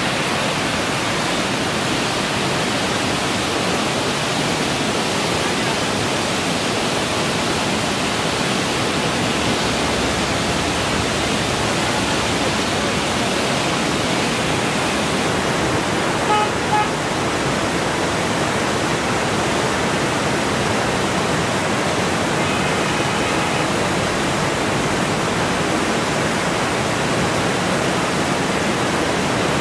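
Tinau River in flood: the steady, dense rush of fast, turbulent floodwater. Two brief pitched blips sound over it about halfway through.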